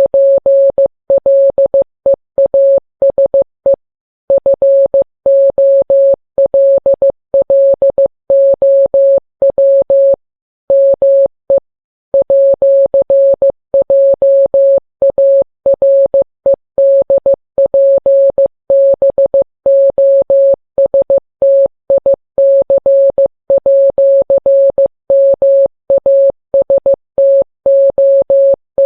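Computer-generated Morse code: a single steady beep a little above 500 Hz keyed on and off in dots and dashes, with longer pauses between words. It spells out a social-media link.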